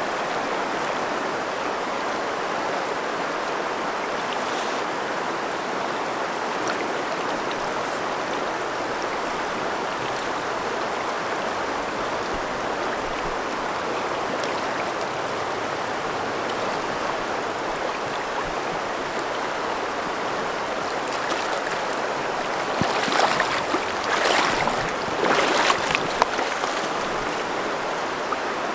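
River current rushing steadily, with several short louder surges of noise near the end.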